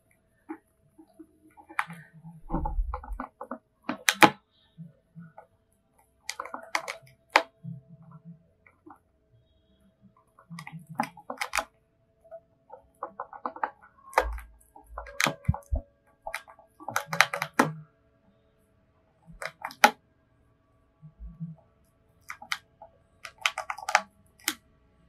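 Hamster nibbling and crunching a grilled sesame rice cracker: irregular runs of small, crisp crunching clicks with short pauses between bites.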